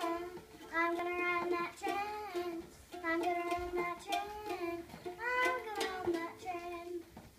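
A young girl singing a made-up song in short phrases of held, sung notes with brief pauses between them, and a few light plucks on the strings of a small toy ukulele.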